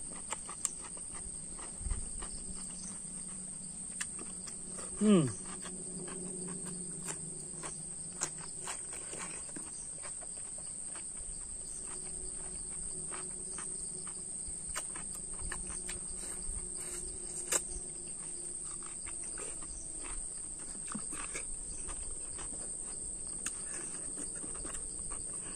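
Steady high-pitched insect chorus, with close-up chewing and small mouth clicks as food is eaten by hand. A short falling vocal sound about five seconds in.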